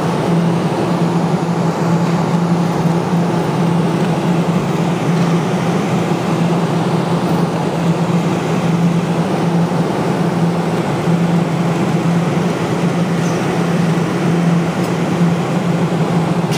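Steady arcade machine noise: a constant low hum under a dense, even hiss, with no breaks.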